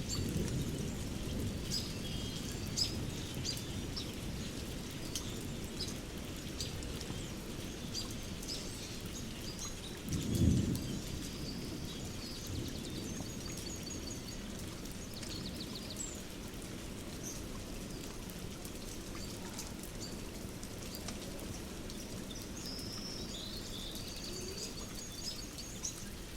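Ambient nature-and-fireside mix: a steady low rumble with a fireplace crackling, birds chirping now and then, and a roll of distant thunder about ten seconds in.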